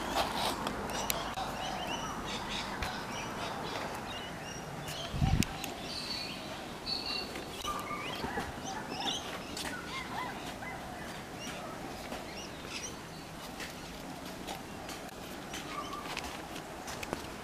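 Small birds chirping, with scattered clicks and rustling of clothing rubbing on tree branches during a climb down the tree, and one short low thump about five seconds in.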